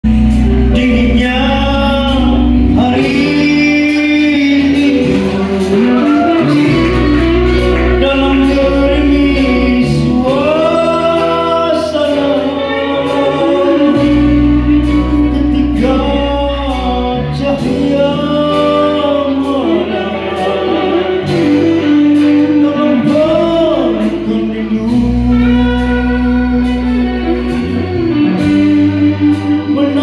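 Live band playing a song: a singer over electric guitars, bass guitar, keyboard and a drum kit, with the cymbals keeping a steady beat.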